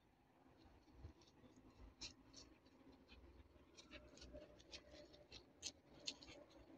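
Faint, irregular scratchy rustles and light clicks of footsteps moving through grass and dry brush, starting about a second in.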